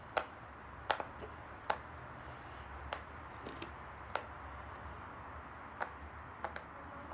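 A silicone pop-it fidget toy having its bubbles pressed one by one, giving about ten short, sharp pops at irregular intervals.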